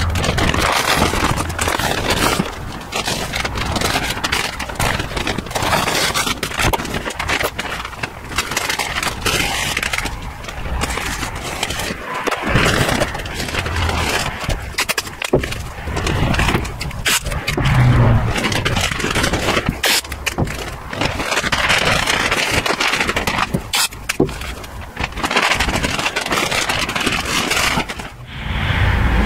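Brown masking paper crinkling and rustling close by as it is pressed and smoothed into the car's body, with irregular scraping and crackling handling noises.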